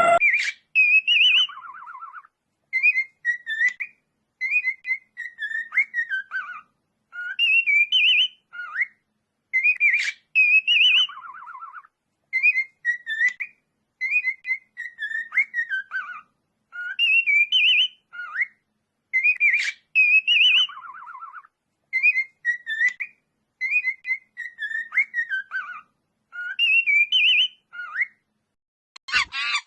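A bird whistling the same short phrase over and over, about every two seconds, each phrase a few clear notes that glide up and down.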